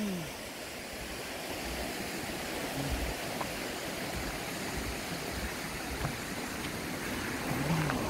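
Shallow mountain stream running over rocks: a steady rush of water at low flow, with a few faint low thumps.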